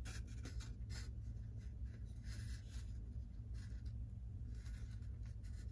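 Light, scratchy handling noises: a small plastic scale machine gun rubbed and turned in the fingers, with several short scratches scattered through, over a steady low hum.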